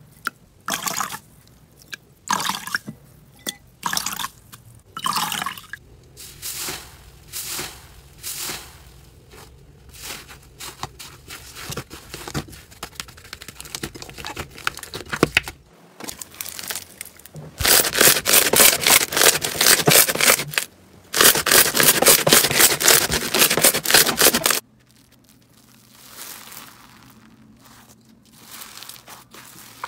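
Hands squeezing and pressing slime in a bowl: irregular wet squelches and pops. About halfway through come two runs of dense, rapid crackling of several seconds each, then quieter soft crackles near the end.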